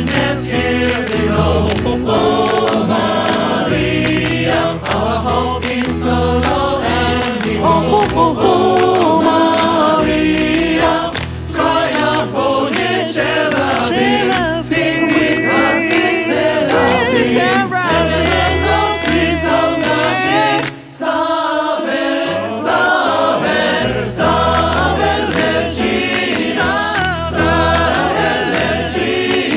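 Mixed choir singing an up-tempo gospel-style hymn in close harmony, with piano and a steadily shaken tambourine. The music drops out briefly about two-thirds of the way through, then the choir comes back in.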